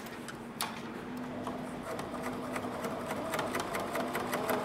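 Pfaff sewing machine running at its slow-speed setting, stitching a test row on a denim scrap with thick topstitching thread. A low motor hum is joined about a second and a half in by a steady rhythm of needle strokes, several a second.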